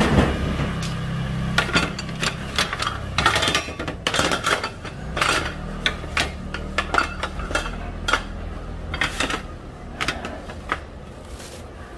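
Metal egg-bread moulds clattering as they are set down and shuffled into rows on aluminium sheet trays: a quick, irregular run of knocks and clinks.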